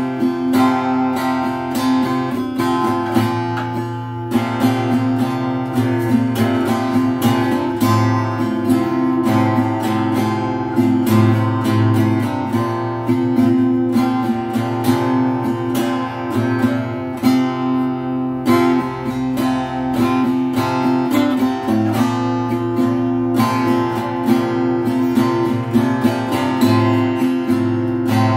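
Stock Donner cutaway acoustic guitar strummed steadily, playing a chord-based tune with quick, continuous strokes.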